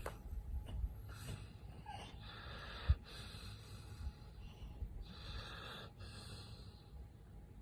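Noisy, breathy huffs of breathing, one long breath from about two to four seconds in and a shorter one about five seconds in, with a soft thump about three seconds in.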